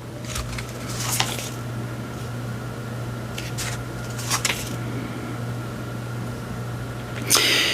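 Oracle cards being shuffled by hand, with a few soft slides and flicks and a louder shuffling rustle near the end, over a steady low hum in the room.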